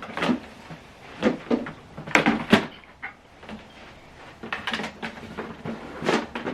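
Handling noise from a USB cable being worked at the printer: a series of irregular light knocks and clicks, the loudest pair about two seconds in.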